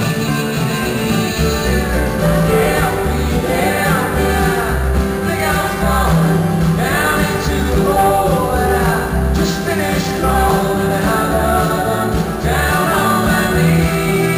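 Live acoustic band playing a song: acoustic guitars and banjo with voices singing over them.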